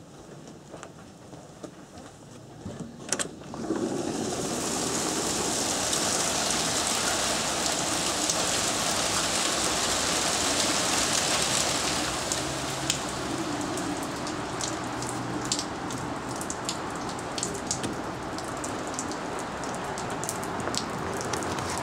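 Hail storm: about four seconds in, a dense, steady pattering of hail and rain sets in. After about twelve seconds it thins into scattered sharp ticks of single stones striking.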